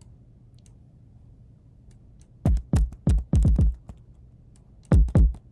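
Synthesized kick drum played back from music production software: a rapid pattern of deep hits, each with a quick downward pitch drop, in two bursts starting about two and a half seconds in. Before the hits there are a few faint clicks over a low hum.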